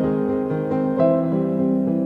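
Slow, soft piano music with held notes; a new note comes in about a second in.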